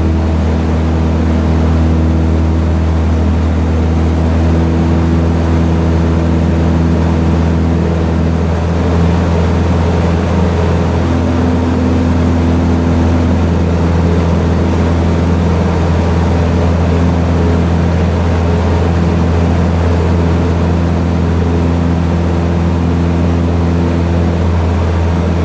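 Ultralight aircraft engine and propeller droning steadily in cruise flight, with wind rushing over the open cockpit. The engine note shifts slightly about ten seconds in.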